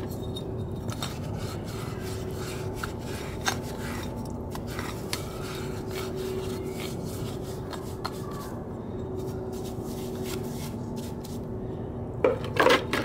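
Paintbrush scrubbing a starter motor's metal front cover in solvent, with scattered small clicks and knocks as the part is turned over the basin, over a steady low hum. A louder burst of scraping and clatter comes near the end.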